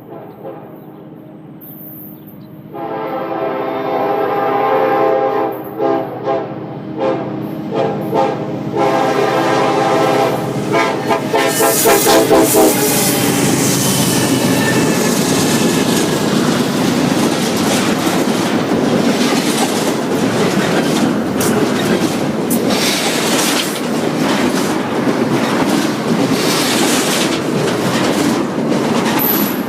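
Norfolk Southern SD70M-2 locomotive's multi-chime air horn, faint at first and then loud from about three seconds in, sounding long and short blasts for roughly ten seconds. The horn then stops and the passing train takes over as a steady rolling noise of wheels and cars.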